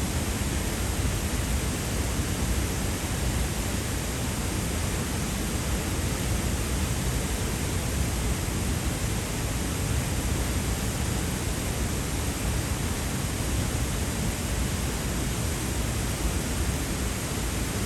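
Dray Nur waterfall: a steady, unbroken rush of falling water, heavy in the low end.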